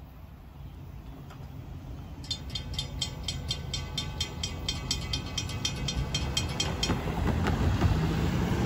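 Railroad crossing bell ringing rapidly, about five strikes a second, then stopping short while the gate arms rise after the trains have cleared. Under it a low rumble grows louder, and near the end cars drive over the crossing.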